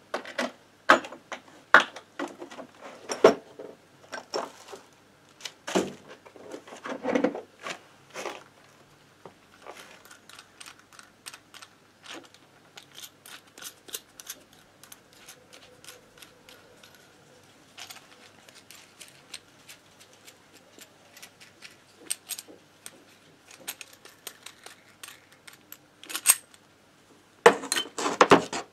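Metal tool parts clinking and clattering as a bearing puller is got out and handled: a run of sharp clicks and knocks, loudest over the first several seconds and again near the end, with lighter ticking between.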